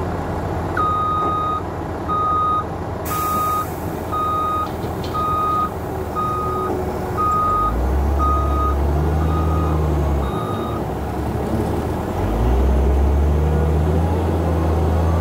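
CAT 966H wheel loader's reverse alarm beeping about once a second, ten beeps, over steady diesel engine noise. About eight seconds in a heavy diesel engine revs up under load, drops back near ten seconds and revs up again about twelve seconds in.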